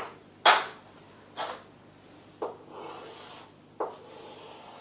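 Chalk writing on a blackboard: several sharp taps as the chalk meets the board, each followed by a short scraping stroke.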